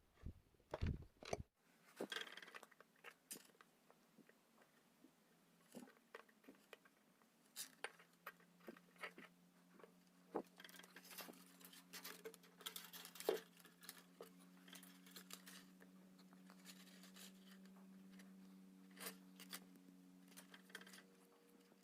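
Scattered faint clicks, taps and crackles of small parts and wires being handled. From about eight seconds in, a faint steady low hum sets in.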